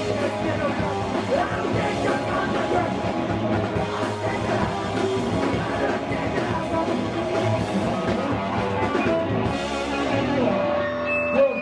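Live hardcore punk band playing loud, with distorted electric guitar and drums; the song ends about ten seconds in, leaving a steady ringing tone.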